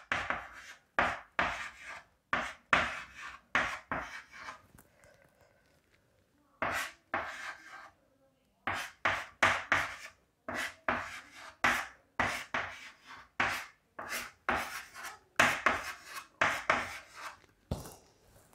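Hand-writing strokes: a run of short scratchy strokes of a pen, marker or chalk, several a second, with a pause of about two seconds near the middle.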